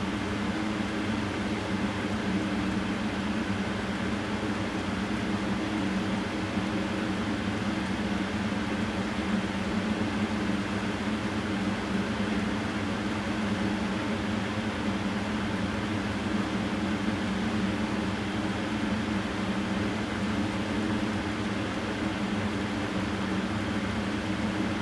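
Steady machine hum with an even noise and a constant low drone that does not change.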